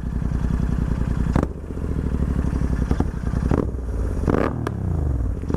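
Royal Enfield Continental GT 650's 648 cc parallel-twin engine running through a freshly fitted Red Rooster stainless-steel exhaust, revved gently, with several sharp pops from the exhaust.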